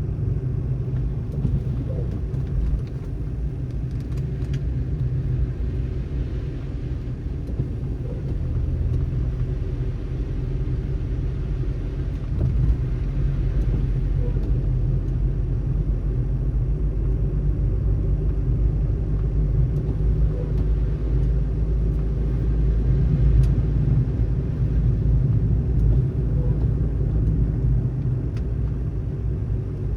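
Car driving on a snow-covered road: a steady low rumble of tyre, road and engine noise that barely changes.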